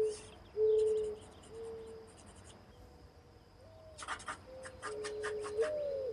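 Mourning dove cooing: soft low hoots, the phrases opening with a rising slur followed by steady drawn-out notes. A quick run of scratchy clicks comes about two-thirds of the way through, over a faint steady high tone.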